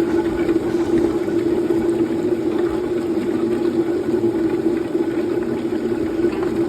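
Sweet potato peeling machine running steadily: a constant motor hum over an even noisy rush, with no change in pace.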